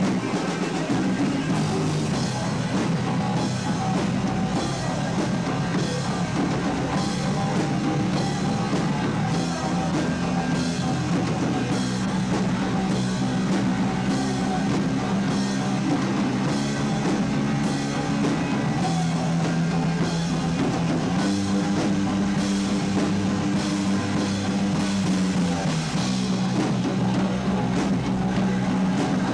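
A rock band playing live: electric guitar and bass guitar over a drum kit. The low notes are held for several seconds at a time and shift in steps, while drum hits fall about twice a second.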